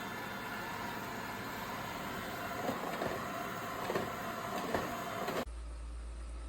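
Airzeen R7 robot vacuum running, a steady whir of its motor and brushes with a few light knocks in the middle. About five and a half seconds in, the sound cuts off abruptly, leaving only a low hum.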